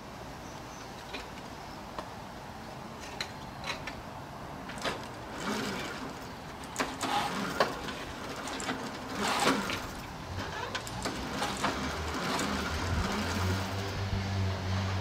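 Clicks, knocks and rattling from a Babetta moped's pedals and drive as it is pedalled on its stand to start it. A low steady hum comes in over the last few seconds.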